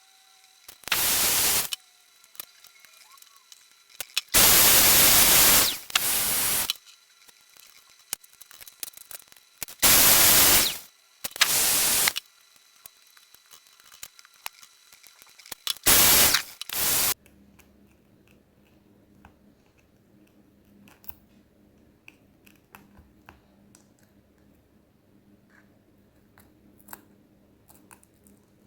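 Loud hissing spray of air in four groups of short bursts, several in two parts, each starting and stopping sharply. After that, faint scattered clicks and taps.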